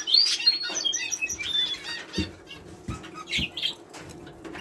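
Small caged songbirds chirping and tweeting, with a quick run of short high chirps through the first two seconds that then thins out. Three soft low thumps come in the middle.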